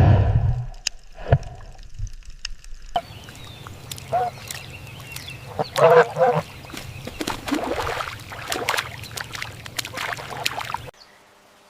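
Animal calls: several short calls with bending pitch over scattered clicks, after a low thump at the start, ending abruptly near the end.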